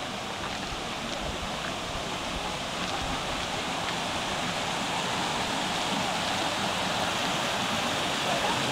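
Small waterfall spilling down a rock face into a pool, a steady rush of falling water that grows louder as it is approached.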